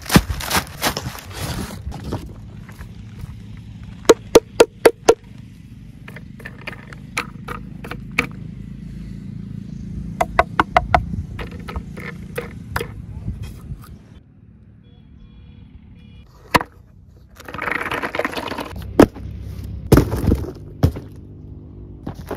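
Packaging and a toy truck model being handled: newspaper wrapping rustling, then quick runs of sharp clicks and knocks from the model in the hands, and more rustling and crinkling near the end.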